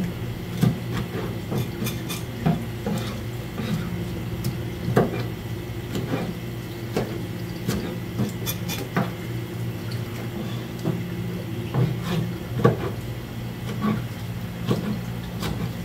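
Kitchen knife chopping whole gizzard shad (jeon-eo) into pieces on a plastic cutting board: irregular knocks of the blade going through the fish onto the board, over a steady low hum.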